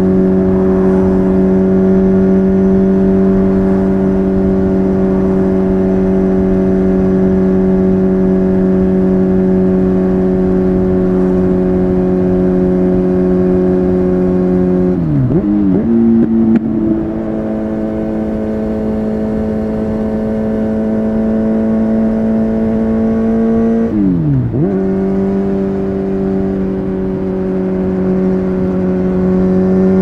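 Kawasaki Z900 inline-four engine through an Akrapovic carbon full-system exhaust at steady highway cruise, holding one constant pitch. Twice the revs drop sharply and come straight back up, once about halfway through and again later, and the pitch climbs as the bike accelerates near the end.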